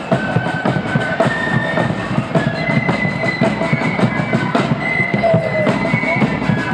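Marching flute band playing: high flute notes carry the tune over rapid snare side-drum strokes and a bass drum beat.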